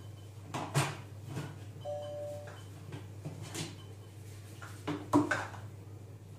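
Lid and stainless steel bowl of a Silvercrest Monsieur Cuisine food processor being handled, with clunks and knocks as the lid comes off and the bowl is set on the base; the loudest knock comes a little past five seconds in. About two seconds in, the machine gives a short electronic beep.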